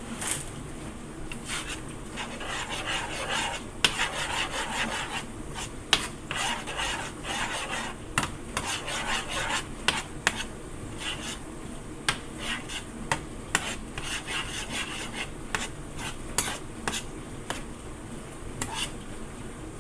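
A spoon stirring thick, cheesy dip in a pan, scraping over the pan's bottom with frequent sharp clicks of the spoon against the pan.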